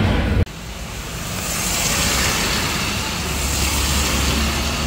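Heavy rain falling on puddled asphalt, a steady even hiss. About half a second in, a louder, deeper rumble cuts off abruptly, and the hiss swells in over the next second. A low hum joins near the end.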